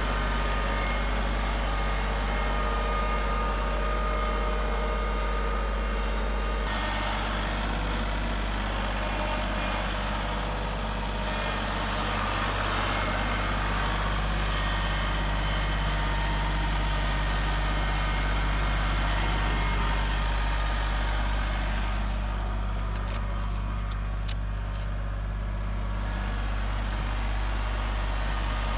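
Kubota compact tractor's diesel engine running steadily while it works with its front loader.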